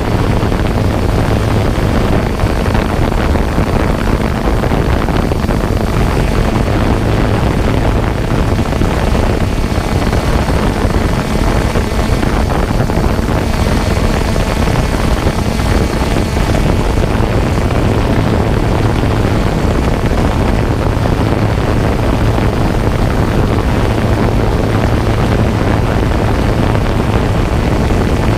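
A steady engine-like drone: a constant low hum under a wash of noise, with no distinct bangs.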